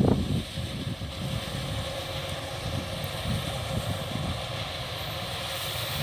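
Kubota DC-105X combine harvester's diesel engine and threshing machinery running with a steady hum.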